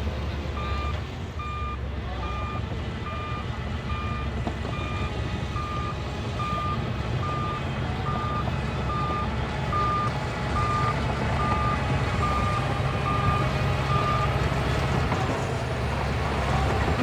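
Reversing alarm on heavy earthmoving machinery beeping steadily, about one beep every 0.8 s, over a diesel engine's low rumble. The beeping stops about 14 s in while the engine keeps running.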